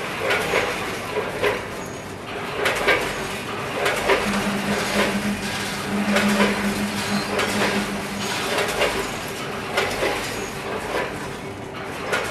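Snack-chip weighing and packaging machine running: repeated clattering knocks of metal parts, roughly one or two a second, over a steady machine hum. A louder hum joins from about four seconds in to about eight.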